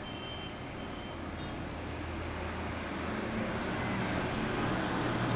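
Steady low motor hum and rumble that grows louder from about halfway through.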